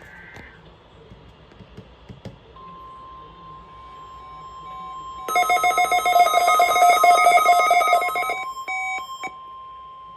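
NOAA Weather Radio's 1050 Hz warning alarm tone sounding for the weekly test: a steady high tone that starts about two and a half seconds in. About five seconds in, a loud, rapidly pulsing alarm beeps over it for about three seconds. A few short beeps follow.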